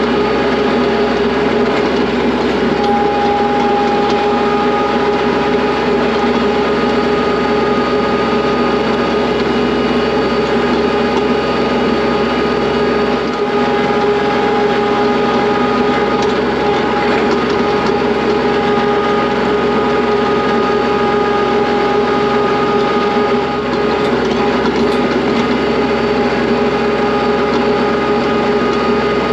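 Kubota tractor's engine running steadily at an even speed while the tractor is driven.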